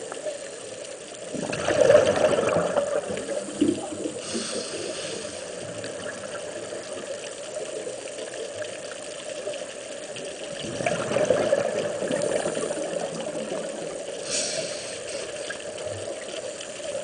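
A scuba diver's breathing recorded underwater: two long bubbling rushes of exhaled air, about two and eleven seconds in, each followed a couple of seconds later by a short hiss of the regulator on the inhale, over a steady low hum.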